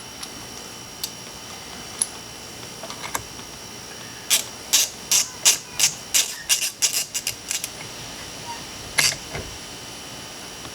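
Hand ratchet being swung to run down the steering wheel retaining nut: a quick run of about a dozen short, sharp rasps over some three seconds, with one more about a second and a half later.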